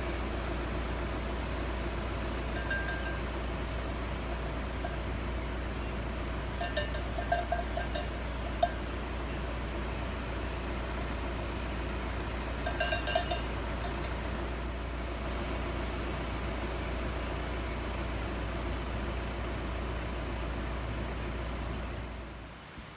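A metal bell clanking in two short bouts of a few rings each, about a third of the way in and again a little past halfway, over a steady low rumble.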